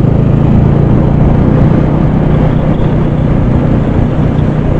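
Motorcycle engine running at a steady cruise on the open road, heard over the rush of wind on the rider's action-camera microphone.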